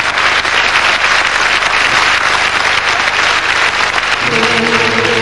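Studio audience applauding steadily. About four seconds in, music starts under the applause with low held notes.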